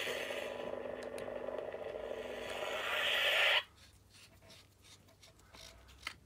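Lightsaber sound effect played by the Korbanth DM1 hilt's Nano Biscotti sound board through its small speaker: a loud, noisy electronic sound that cuts off suddenly about three and a half seconds in. Faint handling clicks follow.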